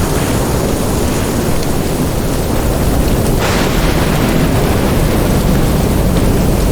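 Thunderstorm downpour: heavy rain with a continuous deep rumble, with a brief louder hiss about three and a half seconds in.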